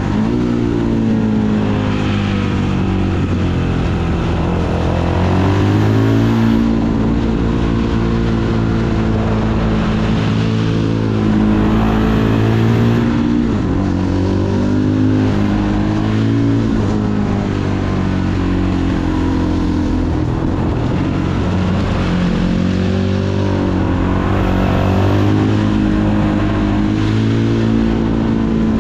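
Fantic Caballero 500 scrambler's single-cylinder four-stroke engine running under way, its pitch dropping and climbing again several times as the rider eases off and gets back on the throttle through gear changes, over steady wind rush.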